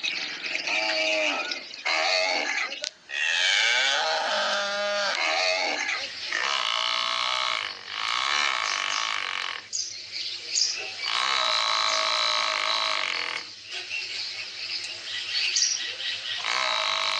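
Farm animals calling: a run of long, drawn-out calls one after another, some wavering in pitch, the longest lasting over a second.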